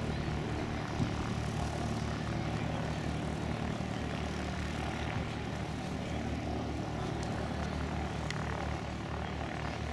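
Steady drone of light aircraft piston engines and propellers, with a pulsing low throb underneath.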